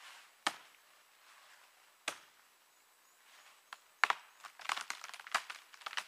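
A large knife chopping into a fallen log: two single strikes about a second and a half apart, then from about four seconds in a quick run of cracks and splintering as the wood is broken open.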